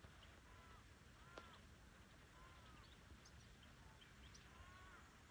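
Faint bird calls: short arching chirps repeated every second or so, with small high peeps between them, over a low outdoor rumble.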